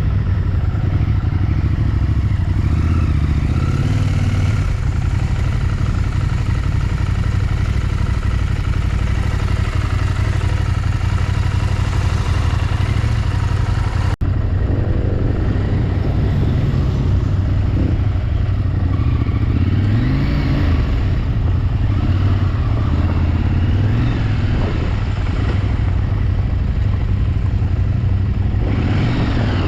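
Motorcycle engine running steadily while riding, with a brief break in the sound about halfway through.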